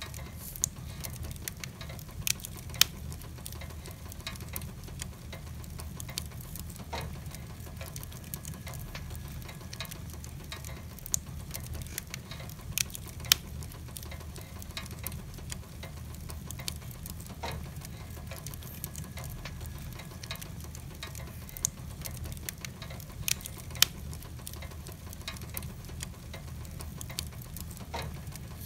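Wood logs burning in a fireplace, crackling with scattered sharp pops, the loudest about 3, 13 and 24 seconds in, over a steady patter of rain.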